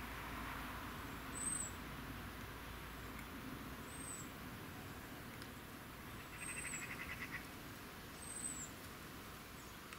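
Outdoor background with a bird giving a short, high chirp four times, about two seconds apart, the first the loudest. A brief fast-pulsing buzz comes about two-thirds of the way through.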